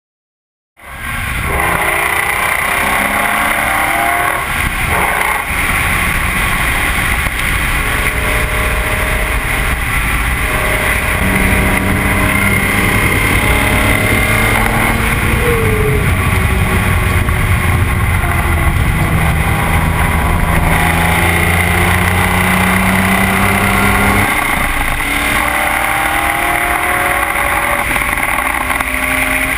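BMW M3 E46's straight-six engine driven hard on a race track, the note climbing and dropping as it revs through the gears. The sound starts about a second in.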